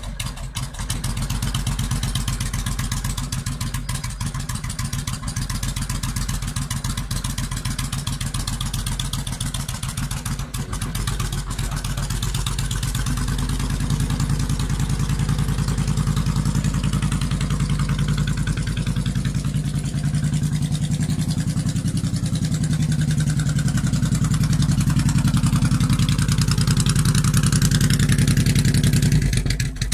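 Suzuki Intruder 1500 LC motorcycle's liquid-cooled V-twin running steadily at idle, a low even beat, louder in the second half and dropping away just before the end.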